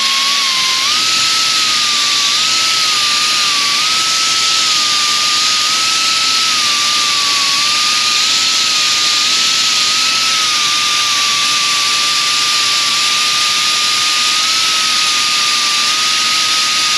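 Pneumatic die grinder with a small abrasive disc running continuously. It makes a steady high whine over a strong air hiss, dipping slightly in pitch now and then as the disc bears on a brake pad to even its surface finish and chamfer its edges.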